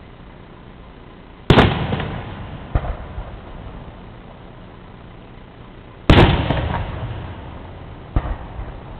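Aerial firework shells bursting: two loud bangs about four and a half seconds apart, each fading over a second or so, and each followed by a quieter bang.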